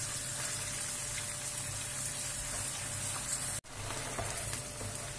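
Cubed lamb liver sizzling steadily in hot oil and tail fat over high heat as it is stirred with a wooden spatula, searing the outside. The sound cuts out for a moment about three and a half seconds in, then carries on.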